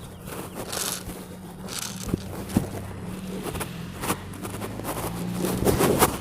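Rustling and scraping close to the microphone, with a few sharp clicks, over a steady low hum.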